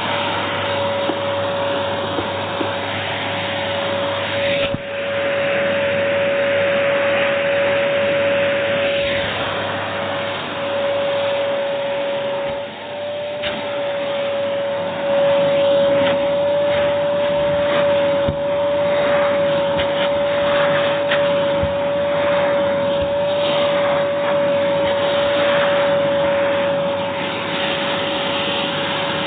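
AEG Airmax AMM6216 2100W canister vacuum cleaner running, a steady motor whine over the rush of air, with the airflow sound shifting now and then and briefly dropping twice.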